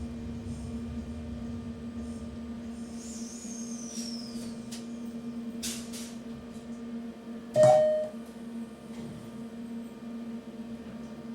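Railway ambience: a steady low hum with scattered clicks and knocks, a high squeal that falls in pitch about three seconds in, and a short, loud tone about seven and a half seconds in, the loudest sound.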